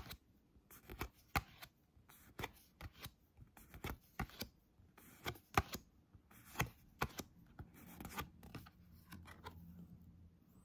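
Pokémon trading cards being flipped through one at a time by hand, each card slid off the front of the stack with a light papery click, irregularly, about one or two a second.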